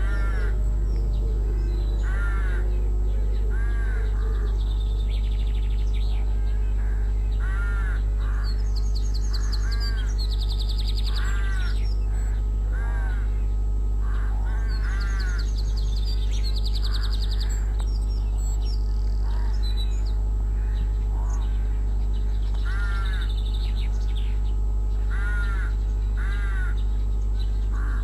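Rooks cawing, short hoarse calls repeated at irregular intervals of one to three seconds, sometimes two close together. Smaller birds sing high and thin in the background over a steady low electrical hum.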